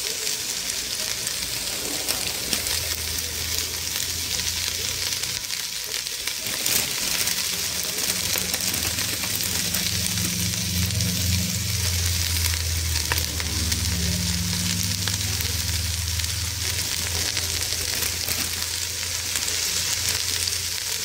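Shredded collard greens and sautéed onions sizzling in a stainless steel pot, a steady frying hiss, with a low hum underneath from about three seconds in until near the end.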